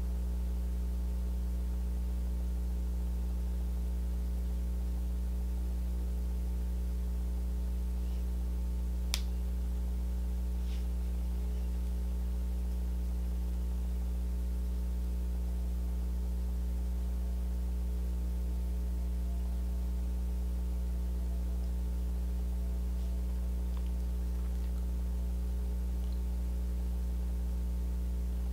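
Steady electrical hum, with one short click about nine seconds in.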